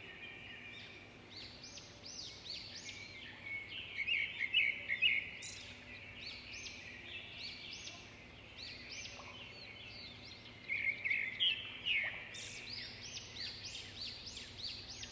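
Several birds singing together: many quick, high chirps and sweeping whistles overlapping one another, with louder bursts about four seconds in and again near eleven seconds.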